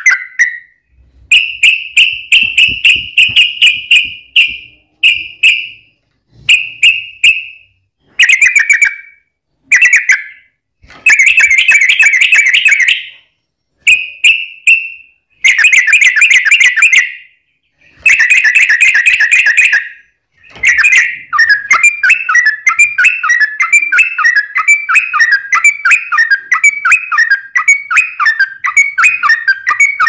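Yellow-vented bulbul (trucukan) singing: short bubbling, whistled phrases a second or two long with brief pauses between them. For the last third these run together into a continuous rapid chattering warble.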